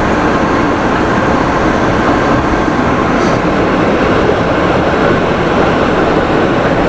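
A vehicle driving on a snowy, rutted road with chains on its front tyres, heard from inside the cab: a loud, steady rumble of engine and chained tyres.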